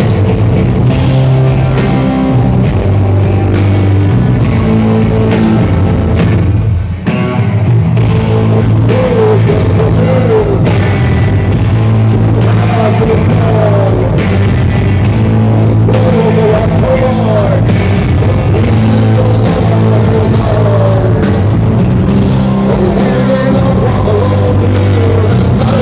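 Live hard-rock band playing loud: electric guitar, bass guitar and drum kit through the venue PA. The band drops out briefly about seven seconds in and comes straight back, and a man's lead vocal joins a couple of seconds later.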